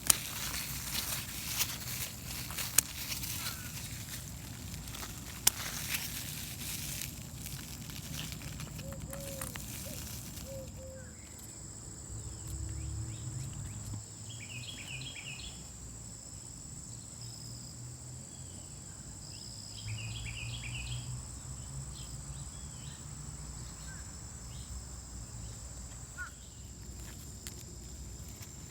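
Rural outdoor ambience: crackling, rustling handling noise for about the first ten seconds, then a steady high-pitched insect drone. Short chirping trills come twice, a few seconds apart.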